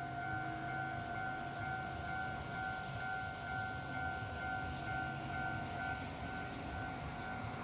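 Japanese railway level-crossing warning bell ringing its steady, repeating 'kan-kan' alarm, over a low rumble.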